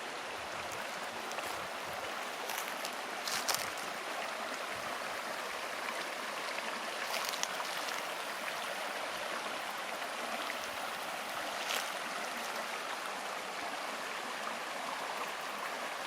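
Steady rush of a running stream, with a few faint clicks.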